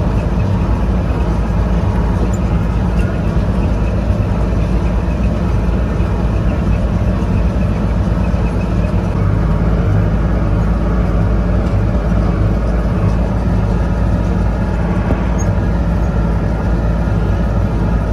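Tractor engine running steadily under load, a constant low drone with no breaks.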